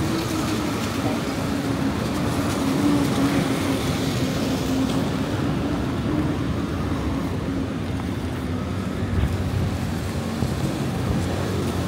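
City street traffic on rain-wet roads: a steady wash of passing cars and tyre noise, with one engine's low hum drifting slowly down in pitch.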